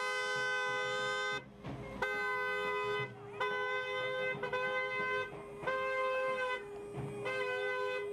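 Two-tone car horn honked in a series of about six blasts, each roughly a second long, with short gaps between them.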